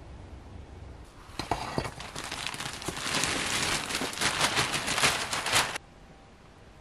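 Clear plastic sheeting crinkling and crackling as it is handled. The sound starts about a second in, grows louder, and cuts off abruptly near the end.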